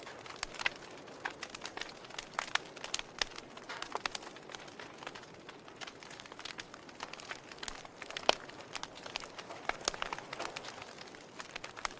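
Wood fire burning and crackling: a soft steady hiss with irregular sharp pops and snaps, one louder pop about eight seconds in.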